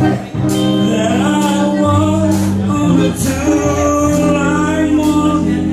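Live rock band playing loudly: electric guitar over a drum kit, with a singer's voice.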